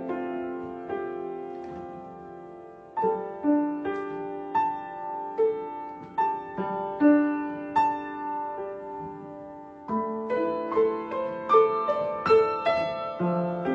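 Solo piano played slowly, a few notes at a time. A held chord fades over the first three seconds, then single-note melody over lower chords picks up again, with a short lull just before the ten-second mark.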